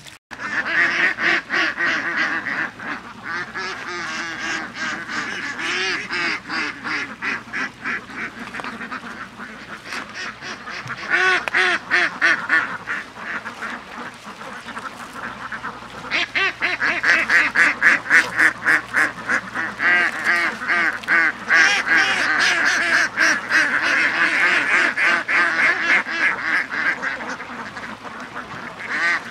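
A flock of waterfowl calling rapidly and without a break, many calls overlapping, louder in spells.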